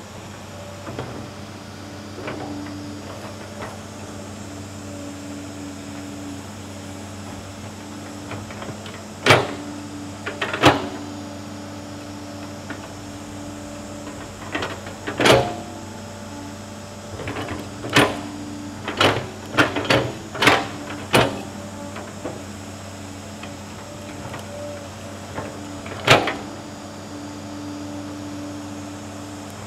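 Tracked hydraulic excavator's diesel engine running steadily under digging load, with about a dozen sharp clanks and knocks from the bucket and arm as it digs, most of them bunched in the middle and one loud one near the end.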